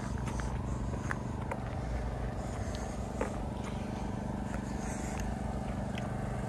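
Steady low engine drone, running evenly without change, with a few faint ticks over it.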